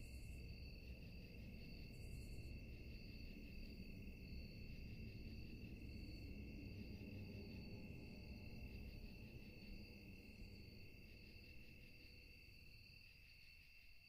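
Faint nighttime ambience of crickets chirping in a steady, high trill over a low rumble, fading out near the end.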